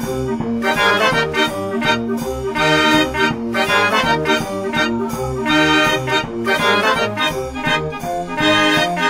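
Background music: a sustained melody over a steady, regular bass beat.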